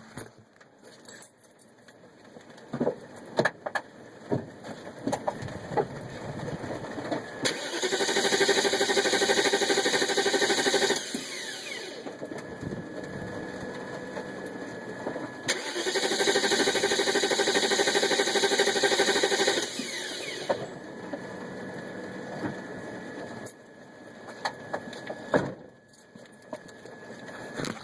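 A BMW 540i's starter cranking the engine in two rhythmic spells, one of about three and a half seconds and one of about four, each cutting off without the engine catching: a crank-no-start fault.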